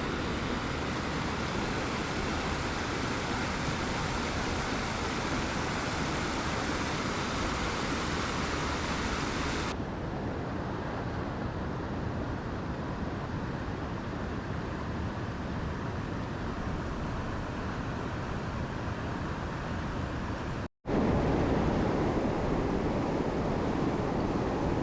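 Mountain stream water rushing steadily. The highest hiss drops away abruptly about ten seconds in, and the sound cuts out for an instant about 21 seconds in before coming back fuller and lower.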